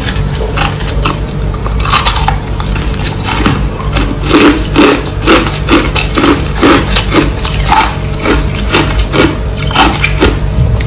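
A person chewing crushed ice close to the microphone. A crunch comes about two seconds in, then from about four seconds on there is steady, rhythmic crunching, about two to three chews a second.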